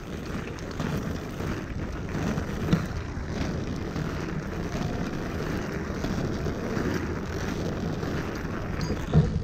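Wind buffeting the microphone over the steady rumble of inline skate wheels rolling on pavement, with a brief knock about two and a half seconds in.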